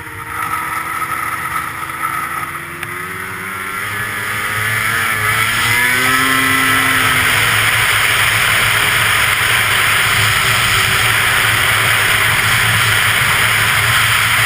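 Arctic Cat CFR 800 snowmobile's two-stroke engine, its pitch gliding up and down, building over the first seven seconds into a loud, steady rushing run at speed.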